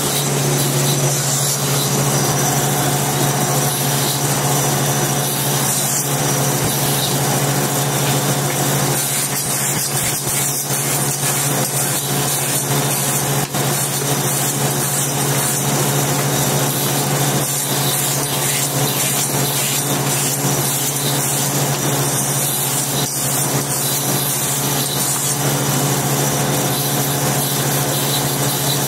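Small table saw running steadily with a low motor hum, its blade cutting thin strips of slate into slate pencils with a continuous high grinding hiss.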